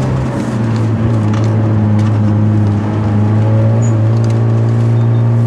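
Hyundai Genesis Coupe 2.0's turbocharged four-cylinder engine running under load with a steady droning note, the car being driven hard on a winding road.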